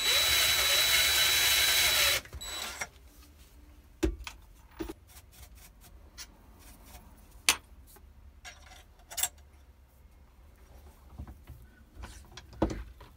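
A cordless drill turns a cutting tool into a pistol slide clamped in a vise, cutting the recess for a reverse recoil plug. It runs steadily with a whine for about two seconds, then stops. After that come scattered clicks and knocks as the tools are handled.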